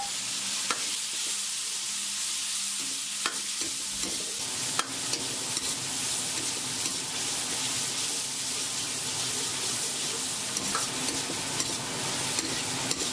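Pickled mustard greens, pickled ginger and pickled chilies sizzling in hot oil in a wok while being stir-fried with a wok ladle. A steady hiss of frying, with the ladle scraping and clicking against the wok every few seconds.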